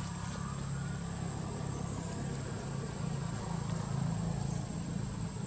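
A steady low hum, like an engine running nearby, with a thin steady high whine above it.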